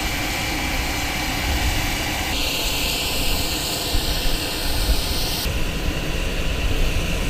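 Steady aircraft engine noise, with no gunfire. Its tone changes abruptly twice, about two and a half seconds in and again about five and a half seconds in.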